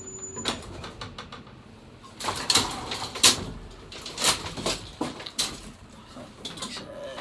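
An old elevator's hum and whine cut off about half a second in as the car stops. Then its metal scissor gate clanks and rattles as it is folded open, in a run of sharp metallic knocks.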